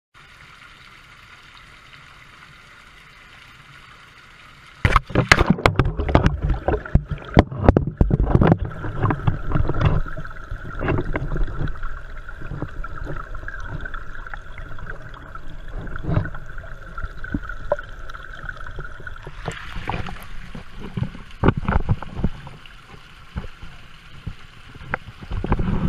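Fountain water heard through a GoPro's waterproof housing: a faint steady splash, then about five seconds in a sudden loud churn of sloshing, gurgling and knocks as the camera is plunged underwater into the basin. A steady hum is heard for several seconds while the camera is submerged.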